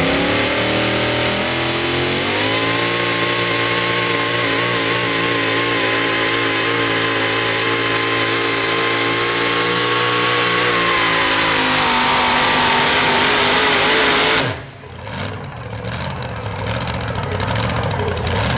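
Super modified four-wheel-drive pulling truck's engine at full throttle under load: the revs climb about two seconds in and hold high and steady, sag a little near the end, then the sound drops away suddenly as the throttle closes, leaving a lower, rougher running sound.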